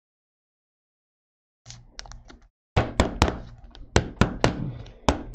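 Trading cards and packs being handled at a table: a soft rustle a little under two seconds in, then about eight quick, sharp knocks and taps in the last two and a half seconds.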